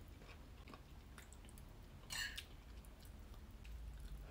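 A person chewing a mouthful of food close to the microphone, with faint wet mouth clicks and one brief louder sound about two seconds in.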